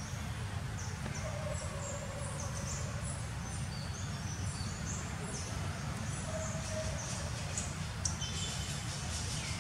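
Outdoor ambience of many short, high bird chirps scattered throughout, over a steady low rumble.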